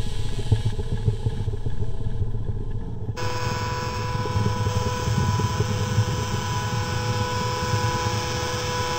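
Edited, EQ'd found-sound collage: a dense, steady low rumble with a few steady tones over it. About three seconds in, an abrupt cut brings in a brighter, hissier layer with clearer tones.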